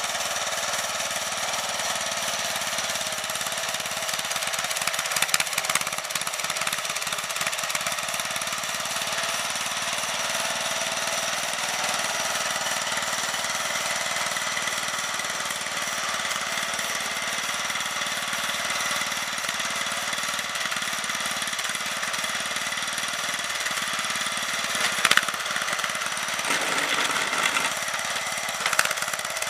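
Snapper LT11 lawn tractor's small gasoline engine running steadily under load as the tractor pushes snow with a front plow blade. A few brief, louder knocks come about five seconds in and again near the end.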